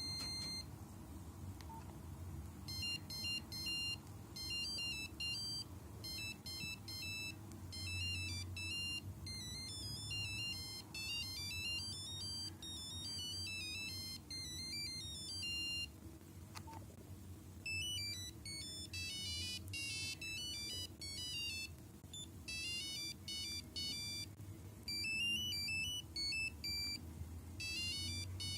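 Nokia 5125 mobile phone playing its ringtones: high, single-note beeping melodies that start a couple of seconds in, break off for a moment about halfway through, then a further tune plays.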